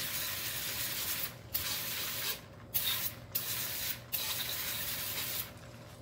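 Aerosol can of brake cleaner spraying in a series of hissing bursts with short breaks between them, degreasing the gunk off a pressure washer's pump head. The spraying stops about five and a half seconds in.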